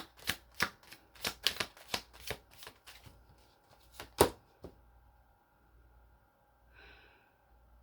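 Tarot cards shuffled by hand: a run of quick, irregular card slaps and flicks for about three seconds, then one sharp slap about four seconds in before it goes quiet.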